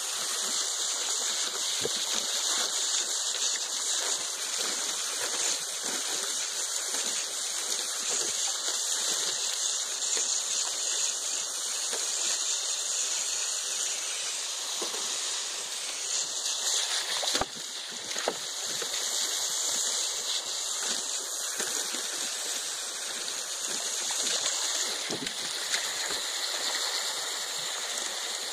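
A garden hose jet rushing steadily into a plastic kiddie pool, with a Great Pyrenees puppy's paws splashing in the water. A single sharp knock a little past halfway.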